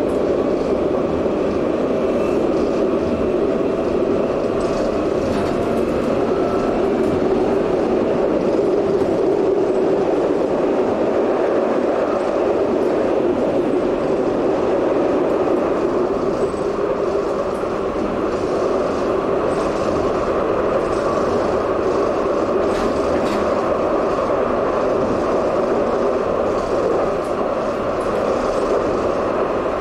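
Tram running along its rails, heard from inside the passenger saloon: a steady rumble of wheels and traction equipment with scattered light clicks.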